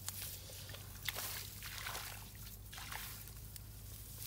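Shallow muddy paddy water splashing and sloshing in short, irregular bursts as a person wades and gropes through it by hand.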